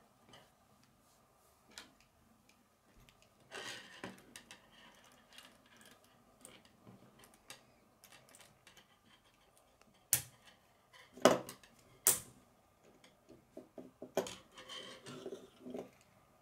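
Plastic K'nex rods, connectors and gears clicking and rattling as they are handled and snapped together, with three sharp snaps about a second apart some ten seconds in.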